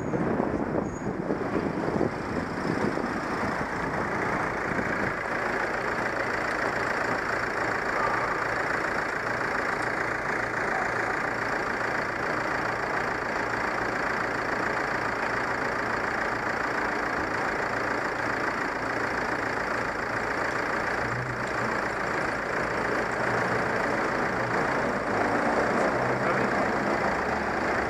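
Steady road-traffic noise, with motor-vehicle engines running close by.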